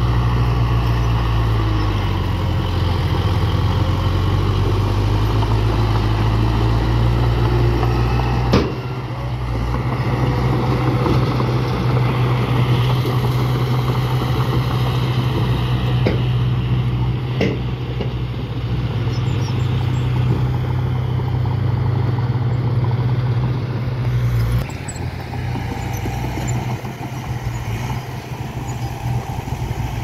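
Diesel engine of a small Komatsu crawler bulldozer running steadily under load while it pushes soil. There is a sharp knock about eight and a half seconds in and another about seventeen and a half seconds in. About twenty-four seconds in the steady engine hum falls away, leaving a quieter, rougher engine sound.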